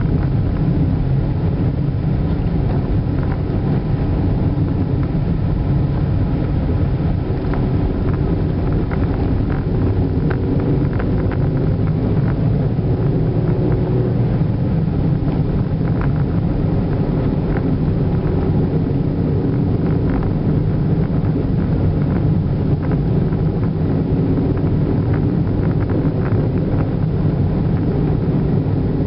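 Steady engine and tyre rumble heard from inside a moving car, with scattered light ticks and rattles.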